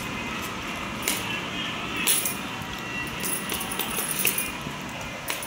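Someone eating pakhala (rice in water) by hand from steel dishes: chewing and mouth sounds with several sharp clicks and light clinks scattered through, over a steady background hiss.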